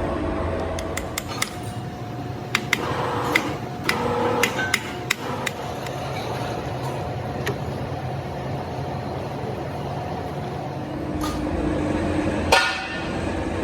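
Sharp metal knocks and clanks, a run of quick strikes in the first few seconds and one loud strike near the end, over a steady machine hum.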